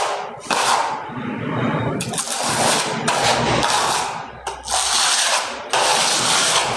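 Repeated rasping, scraping strokes of hand work with a tool, about one a second, each stroke a short hiss-like burst.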